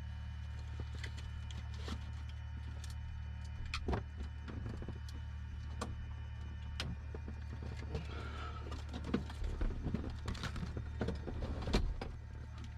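Steady low drone of a Cessna 172's four-cylinder engine idling, heard inside the cockpit, with scattered sharp clicks and knocks that come more often in the second half.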